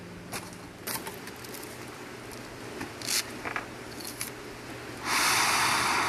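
Several light clinks and knocks of objects being handled, then, near the end, a loud hiss lasting about a second and a half.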